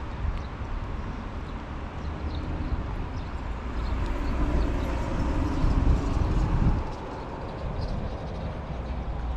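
Wind rumbling on the microphone at the water's edge. A louder swell of noise builds from about three and a half seconds in and drops away suddenly near seven seconds.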